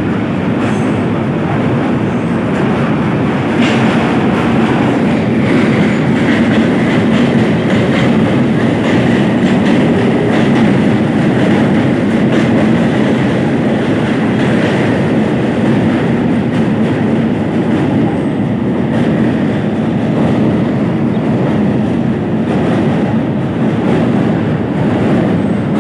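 Passenger train running across a steel truss rail bridge, heard from inside a coach at an open window: a loud steady rumble with the clickety-clack of wheels over rail joints. Midway another train passes close alongside, and a faint high wheel squeal comes and goes.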